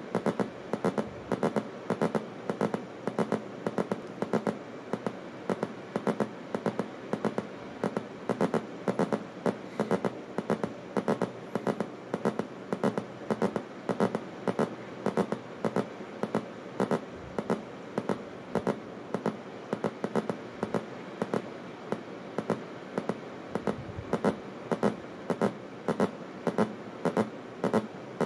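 Breadboard avalanche-transistor oscillator controlled by a light-dependent resistor, giving a continuous crackling buzz broken by sharp, irregular clicks about two or three a second. Its sound is driven by the light from the video playing in front of the resistor.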